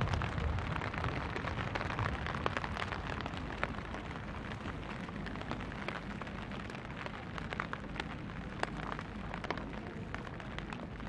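The echo of a large firework shell burst rumbles away over the first few seconds, leaving steady rain falling, with many single drops ticking close by.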